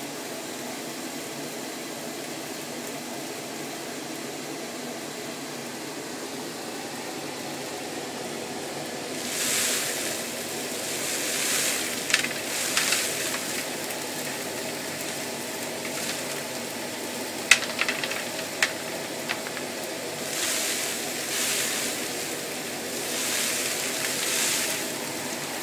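CamVac twin-motor dust extractor running with both motors on, drawing air through its hoses and a Thien-baffle cyclone separator: a steady motor whine with rushing air. From about nine seconds in, the rush of air swells and falls back several times, with a few sharp ticks.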